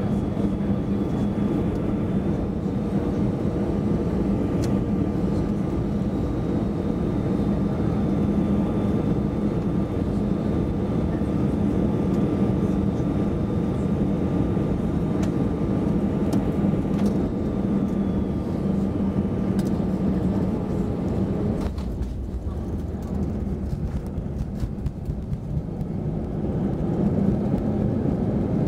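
Cabin sound of an Airbus A320's CFM56 turbofans on final approach: a steady drone with a held whine. About three-quarters of the way through the whine drops away as the aircraft touches down, giving way to runway rumble with scattered knocks, and the engines rise again near the end as reverse thrust is applied.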